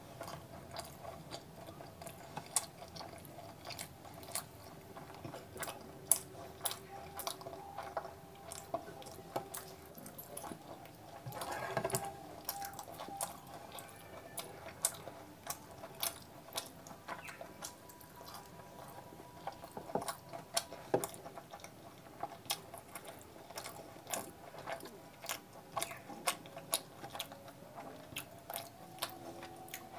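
Close-miked eating sounds: wet chewing and mouth clicks while eating puri soaked in chicken curry, with fingers squishing through the curry. Irregular short clicks throughout, with a longer, louder wet noise about twelve seconds in.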